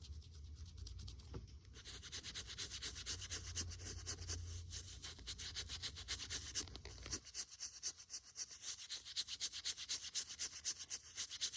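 Rapid back-and-forth scrubbing on the toy's fabric with Fels-Naptha laundry soap to lift a light discoloration, several quick rasping strokes a second.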